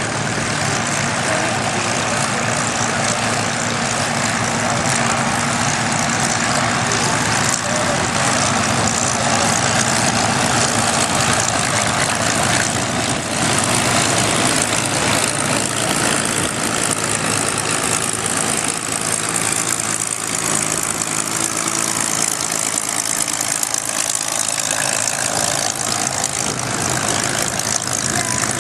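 Several Supermarine Spitfires taxiing, their V12 piston engines running steadily at low power.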